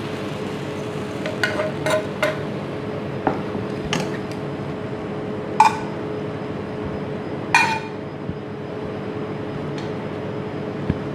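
Metal tongs and a spatula clinking and scraping against frying pans and a ceramic plate as food is served out: scattered sharp clinks, two of them louder and ringing about halfway through, over a steady background hum.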